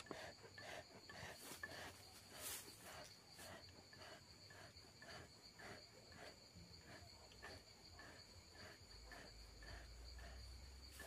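Faint, rhythmic puffs of a hand-pumped bellows bee smoker, about three a second, over a steady high insect trill.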